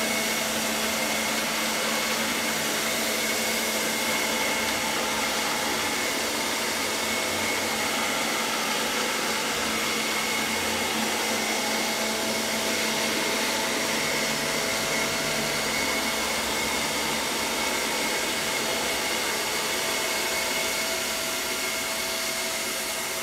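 Chuwi ILIFE V5S robot vacuum running steadily: an even hiss of its suction fan with a steady high whine, a little fainter near the end.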